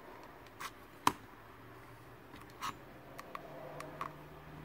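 Fingertips tapping on the glass touch screen of an iPad Air 2: a handful of short light taps, with one sharper tap about a second in, while testing whether the touch screen responds.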